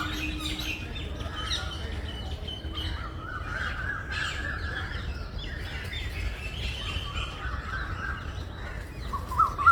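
Several forest birds chirping and calling over one another, with a steady low rumble underneath.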